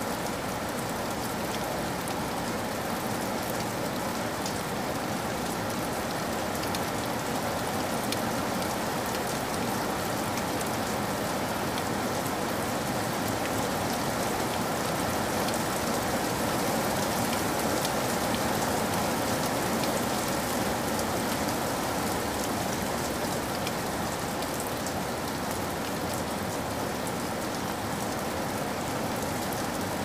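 Heavy rain falling steadily and splashing onto a wet surface, a dense even hiss of drops that swells slightly around the middle.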